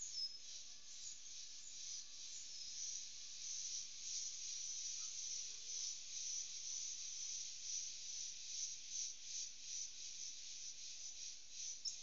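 High-pitched chorus of insects in the forest at dusk, a shrill buzzing that pulses evenly about twice a second.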